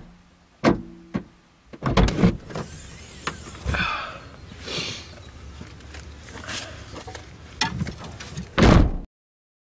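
Car boot lid being handled: a series of knocks, clicks and rustling, then a heavy thump near the end as the boot is slammed shut, after which the sound cuts off suddenly.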